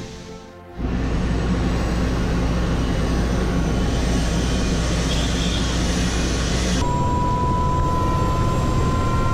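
Tour helicopter's turbine engine and rotor running on the ground, heard from inside the cabin: a loud, steady drone that cuts in sharply under a second in, after fainter rushing. About seven seconds in the drone changes and a thin high whine joins, slowly rising in pitch.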